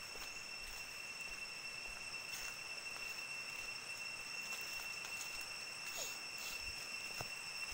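Insects in the forest keeping up a steady, unbroken high-pitched drone, with a few faint ticks and rustles over it.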